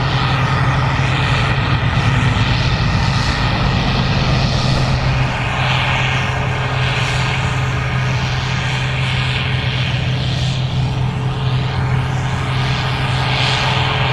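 Gleaner R65 combine running steadily while harvesting corn: an even engine drone with a strong low hum, and a hiss of machinery and crop that swells and fades now and then.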